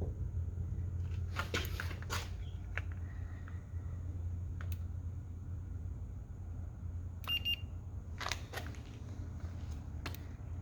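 Car engine idling low and steady shortly after a cold start, with several sharp clicks and knocks over it and a short high beep about seven seconds in.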